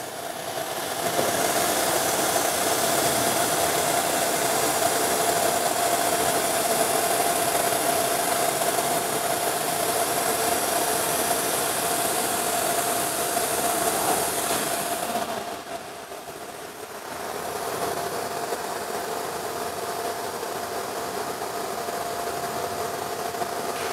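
CNC router gantry and head traversing along the table under motor drive while the tool is moved to a measuring point: a steady whine over a hiss, which stops briefly about two-thirds of the way through and then runs on a little quieter.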